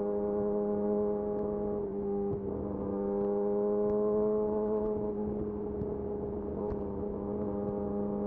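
Yamaha YZF-R6's inline-four engine through a de-catted Akrapovic slip-on exhaust, running at a steady, nearly constant pitch while riding, with a slight rise in pitch around the middle.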